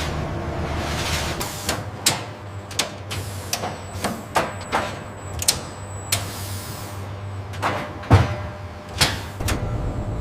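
About a dozen sharp knocks and clanks at irregular intervals over a steady mechanical hum, like handling and machine noise in a factory. The loudest knock, about eight seconds in, has a deeper thud.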